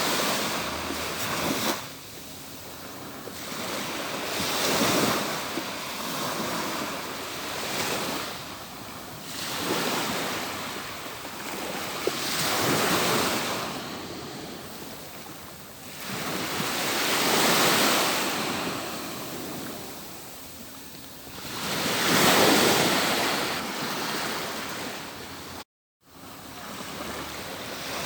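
Atlantic Ocean surf breaking on a beach, coming in slow swells of rushing noise about every four to five seconds. Near the end the sound drops out to silence for a split second.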